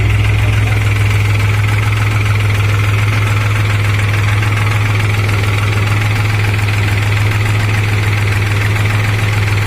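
New Holland TT4.55 tractor's diesel engine running steadily at constant speed, a low unbroken drone with a steady hiss above it.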